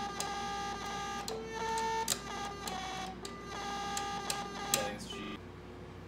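Programmable 1970s electronic door chime played from its key buttons like a little keyboard: a run of electronic notes held about half a second to a second each, stepping up and down in pitch, with clicks as the keys are pressed over a steady low hum. The notes stop about five seconds in, leaving the hum.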